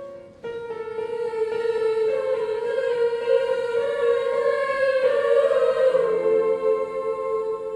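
Background music: sustained choir-like voices holding chords, swelling in the middle and easing off near the end.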